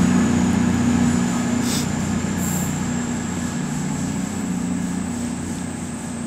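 Two coupled Class 221 Voyager diesel-electric trains pulling out, their underfloor diesel engines running with a steady low hum that slowly fades as they move away.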